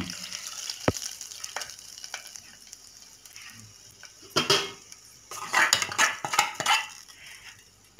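Hot ghee tempering with curry leaves, ginger, pepper and cashews sizzling as it is poured into cooked ven pongal in an aluminium pressure-cooker pot, with a knock of the pan against the rim; the sizzle dies away over the first few seconds. Then a metal spoon scrapes and clinks against the pot as the tempering is stirred in, loudest about four and a half seconds in and again from about five and a half to seven seconds.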